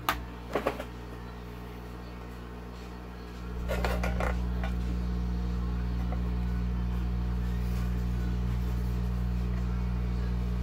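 Hot air rework station's blower comes on about three and a half seconds in and runs with a steady low hum. A few sharp clicks of the circuit board being handled come near the start.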